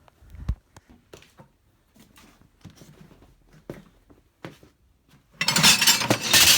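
Scrap metal pieces being handled, with scattered light clinks and knocks, then about five seconds in a loud, dense rattling clatter of metal.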